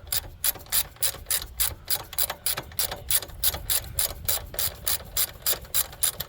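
Ratchet wrench with a 10 mm socket clicking steadily, about five clicks a second, as a bolt is backed out.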